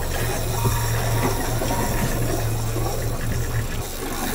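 Boat engine running steadily at low speed, a constant low hum, with water hissing and washing past the hull.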